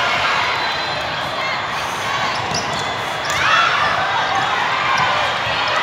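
Volleyballs being hit and bouncing during a rally, over the steady echoing din of a large hall full of courts, with many voices of players and spectators.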